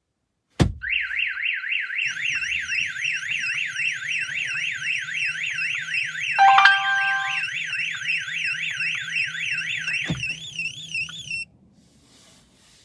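StarLine car alarm siren going off: a fast warbling up-and-down tone, about three sweeps a second, that starts just after a sharp thump and cuts off suddenly near the end. A short chime of steady tones sounds over it about halfway through, and another thump comes shortly before the siren stops.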